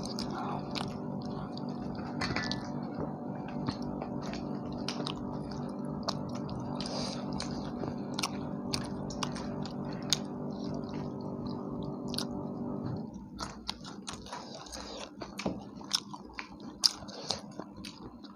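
People chewing and biting into tandoori chicken, with many sharp clicks and crunches. Under it a steady hum of several tones cuts off about thirteen seconds in.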